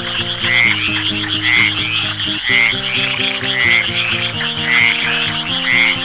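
Frogs calling: a croak repeating about once a second over a continuous high trilling chorus. Under it runs background music, a melody of held notes changing every half second or so.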